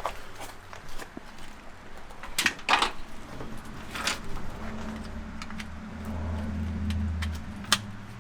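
Hand-handling noises of car parts and wiring: a few sharp clicks and knocks as the fuel pump's electrical connectors are plugged in, with a low hum lasting about a second and a half near the end.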